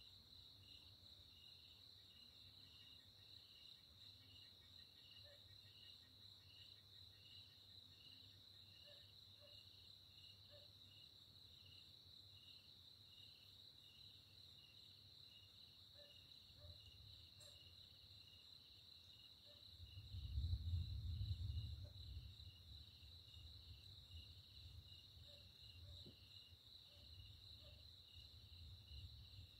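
Night insects chirping steadily in a high, even trill with a regular pulsing chirp beneath it. About twenty seconds in, a low rumble of distant thunder swells for a couple of seconds and fades away.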